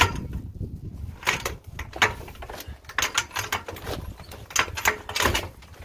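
An old house window being worked loose and lifted out of its stucco wall opening: a series of separate knocks, scrapes and rattles of the frame against the opening, about one every half second to second.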